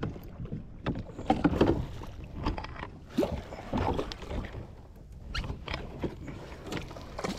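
Scattered small knocks and clatter of gear handled on a fishing kayak, with a couple of short squeaks in the middle.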